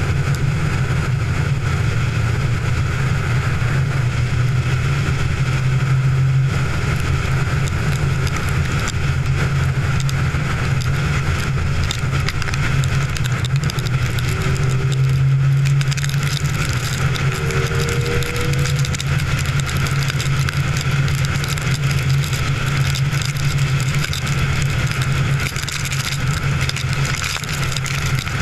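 Steady road and engine noise of a moving car heard inside the cabin: a constant low drone with an even hiss over it.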